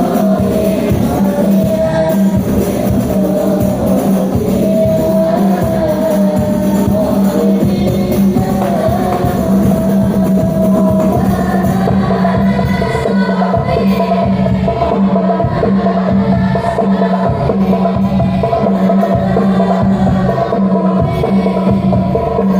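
Islamic devotional song (sholawat): a high voice singing a flowing melody with other voices, over a steady drone and frame drums with jingles keeping a regular beat.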